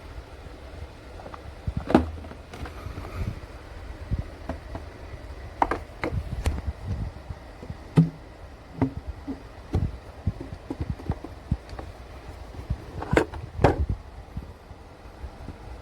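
Irregular clicks and knocks, a few sharper ones standing out, over a faint low rumble.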